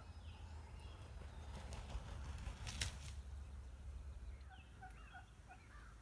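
Distant wild turkey gobbling, peaking about three seconds in, over a low steady rumble. A few short, separate calls follow near the end.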